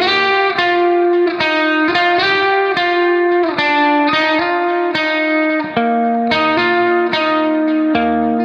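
Background instrumental music: a melody of held notes changing every half second or so.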